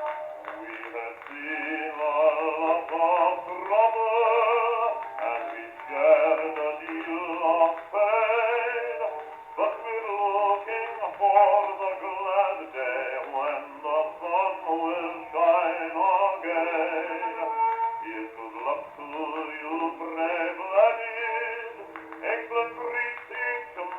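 A male singer with accompaniment on a c.1916 acoustically recorded 78 rpm shellac disc, singing with a wide vibrato. The sound is thin and narrow, with no deep bass or high treble.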